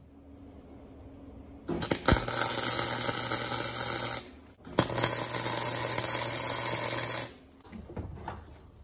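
Welding arc crackling and buzzing in two bursts of about two and a half seconds each, tack-welding a steering shaft joint held in a bench vise.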